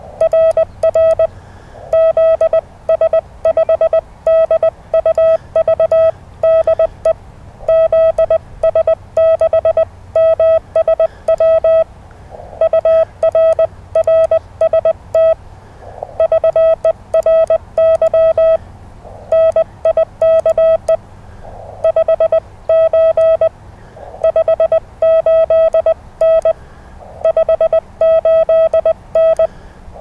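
Morse code from an amateur radio transceiver: a single steady tone keyed rapidly on and off in dots and dashes, grouped into characters and words with short gaps between.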